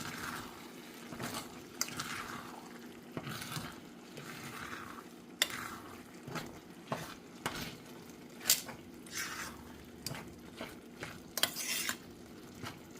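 A utensil folding corned beef and sausage into rice in a cooking pot: repeated scraping strokes with clinks and knocks against the pot, a few of them sharper taps.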